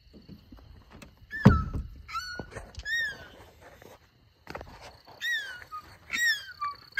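A dog whining in short, high squeals that rise and fall, about six of them spread over several seconds. One loud thump comes about one and a half seconds in.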